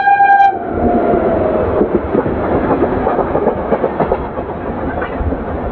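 Express passenger train running at speed, heard from on board: a steady rumble with wheels clattering over the track. A single-note horn blast, carried over from just before, cuts off about half a second in.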